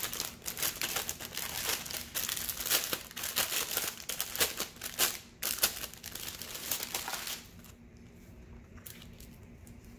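Clear plastic packaging bags crinkling as a diamond painting kit is unwrapped and handled, an irregular crackle that stops about seven seconds in.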